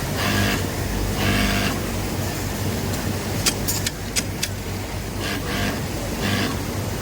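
Industrial sewing machines on a garment factory floor, with a steady motor hum. They stitch in short pitched bursts of about half a second, twice near the start and twice near the end, and a few sharp clicks come around the middle.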